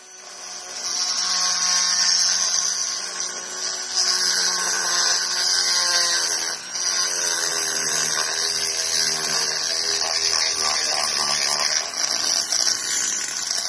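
Handheld rotary tool grinding inside a port of a two-stroke Mobylette cylinder, porting it for a tuned engine. The tool spins up over the first second, and its whine dips and recovers as the bit bites into the metal.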